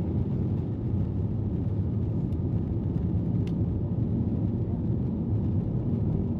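Steady low rumble of a jet airliner's engines and rushing air, heard from inside the passenger cabin during takeoff and the initial climb.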